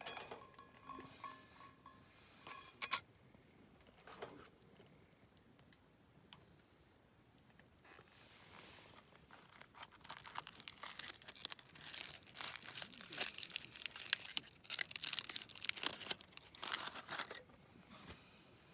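Crinkling and rustling, like packaging being handled, from about ten seconds in until near the end. It follows a few light clicks and a sharp ringing clink about three seconds in.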